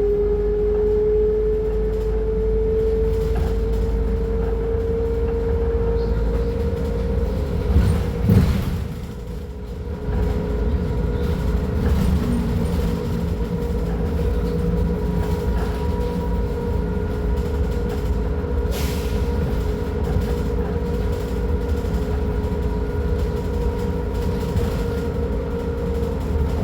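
Scania K310UB bus's diesel engine running, with a steady high whine over the rumble. About eight seconds in there is a loud thump, and the level drops briefly before the running carries on.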